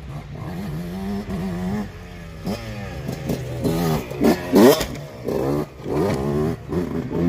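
Off-road enduro motorcycle engines revving, the pitch sweeping up and down with the throttle; the loudest rev comes about four and a half seconds in, as a bike clears a jump.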